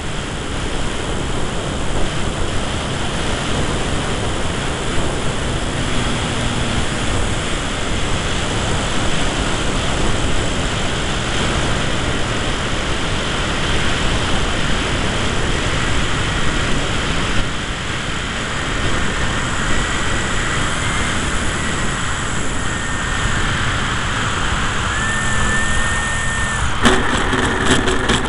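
Steady rush of airflow and propeller noise on the onboard microphone of an electric RC Tiger Moth biplane flying low, with a faint motor whine in the second half. Near the end come sharp knocks and rattles as the model touches down on grass.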